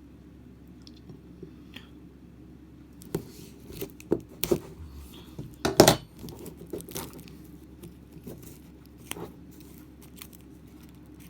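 Board-game components being handled: a run of sharp clicks, knocks and rustles as card decks and plastic or cardboard pieces are taken out of the box, loudest about six seconds in, then a few faint ticks.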